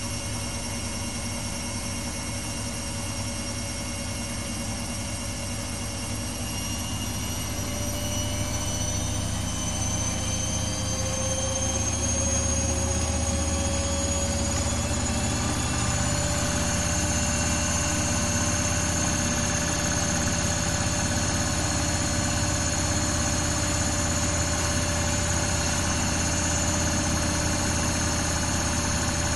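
Samsung WW80J5555FWEU front-loading washing machine running: the motor and drum speed up with a rising whine over several seconds, getting louder, then hold a steady speed with a constant hum and whine.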